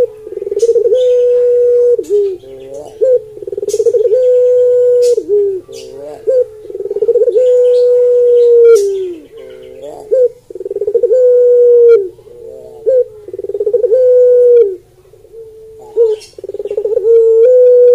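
Barbary dove (puter pelung, Streptopelia risoria) cooing over and over: long, level low coos, each held about a second and then dropping off at the end, with brief gaps between them.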